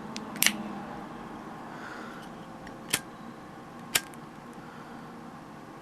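Lighters being handled: a few sharp clicks, the loudest a quick double click about half a second in, then single clicks about three and four seconds in.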